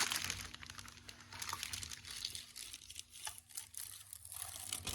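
Packaging crinkling and rustling as the mixer grinder's jars and parts are unwrapped, with small clicks and knocks of the parts being handled.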